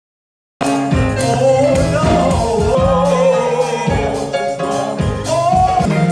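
Gospel music with singing over a band. It starts abruptly about half a second in, with a sung melody over bass notes and a steady beat.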